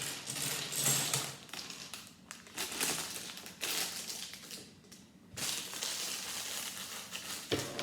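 Crinkling of a thin plastic Lego parts bag being handled and opened, in irregular bursts with a short pause about five seconds in.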